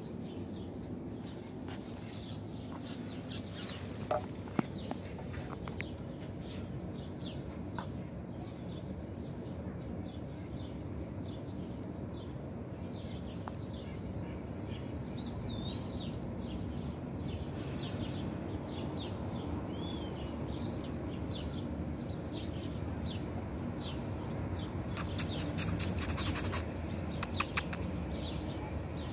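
Birds chirping with many short calls, one a brief gliding note, over a steady low rumble; a quick run of sharp clicks near the end.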